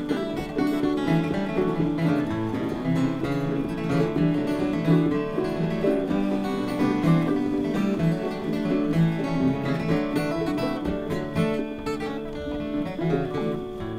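Several acoustic guitars strummed and picked together in an instrumental country-folk passage, with no singing.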